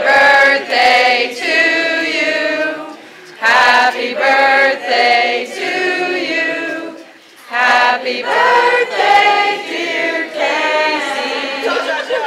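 A group of voices singing together without instruments, in three long phrases broken by short pauses about three and seven seconds in.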